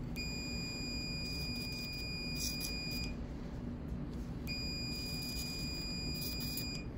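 Hyfrecator electrosurgical unit giving its steady high-pitched activation tone while its tip cauterises bleeding tissue, sounding for about three seconds, breaking off, then sounding again for about two and a half seconds; the tone means the unit is delivering current.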